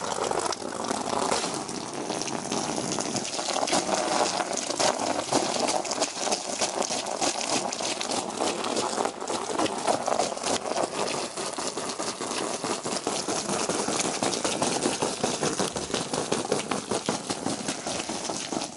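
Jet of water from a garden hose spray nozzle splashing onto the bottom of an empty metal-frame above-ground pool as it is filled: a steady spattering splash.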